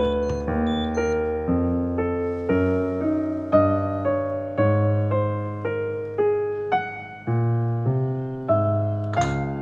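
Background music: a slow, calm piano piece, notes and chords struck about once a second and left to ring out. A brief burst of noise comes near the end.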